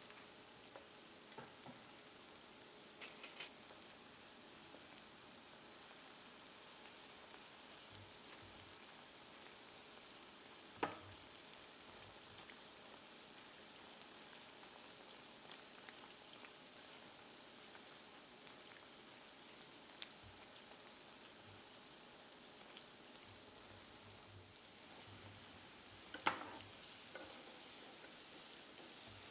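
Crescent-roll donut dough frying in hot oil: a faint, steady sizzle, with a few sharp knocks of a utensil against the pan, the loudest about 11 and 26 seconds in.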